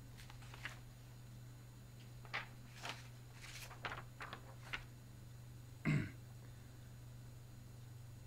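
Quiet room tone with a steady low electrical hum, a handful of faint clicks, and one short louder noise about six seconds in.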